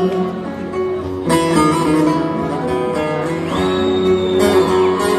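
A live band playing an instrumental passage between the sung lines of a Turkish folk song, led by strummed and plucked acoustic guitar over sustained chords.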